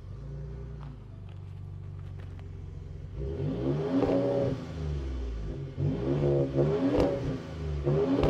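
2020 Ford F-150 Raptor's twin-turbo 3.5-litre EcoBoost V6 heard at its dual exhaust tips, idling steadily, then revved three times from about three seconds in, each rev rising and falling in pitch. The exhaust note is very weak.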